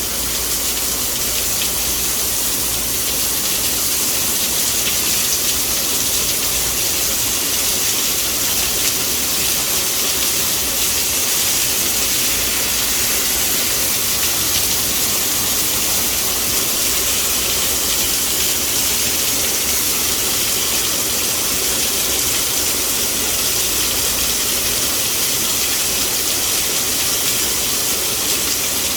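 Thunderstorm downpour: heavy rain falling steadily as a continuous, even hiss.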